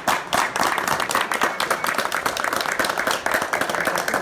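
Audience applause: many hands clapping in a dense, continuous patter.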